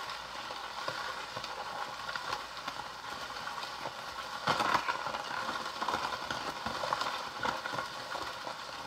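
Baskin-Robbins toy ice cream cake maker being hand-cranked: the plastic churn turns with a continuous rattling, clicking noise, a little louder for a moment about halfway through.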